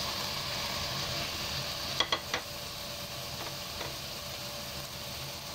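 Diced chicken and vegetables sizzling in olive oil in an enameled cast-iron pot as diced carrots, celery and onion are tipped in and stirred with a spatula. Three sharp knocks against the pot come close together about two seconds in.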